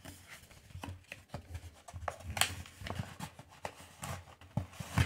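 Kraft-paper cable package being handled and opened by hand: paper rustling and scraping with scattered sharp clicks and snaps, the loudest just before the end.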